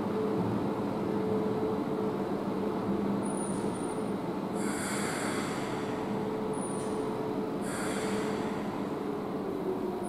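Heathrow Express Class 332 electric train standing at the platform: a steady electrical hum from its equipment, with two hisses of compressed air about three seconds apart.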